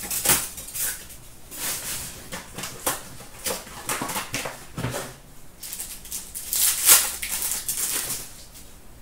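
Trading-card pack wrappers crinkling and cards handled and shuffled by hand, in irregular bursts of rustling.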